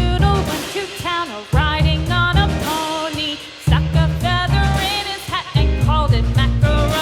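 Background music: an upbeat song with a singing or lead melody over bass and drums.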